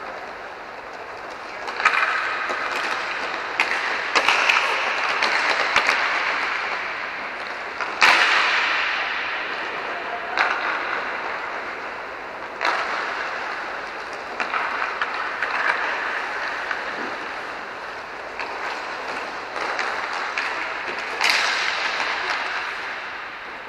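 Inline hockey play: sharp cracks of sticks striking the puck and the puck slamming into the rink boards, about a dozen at uneven intervals, the loudest about 8 seconds in. Each crack rings out in a long echo under the dome.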